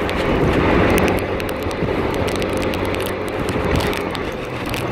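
Motor scooter's small engine running steadily while riding in traffic, with uneven wind rumble and crackle on the microphone.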